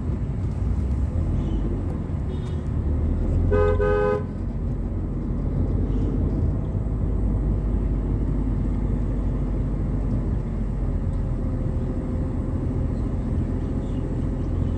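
Low, steady rumble of a car driving, heard from inside the cabin, with a vehicle horn honking twice in quick succession about three and a half seconds in.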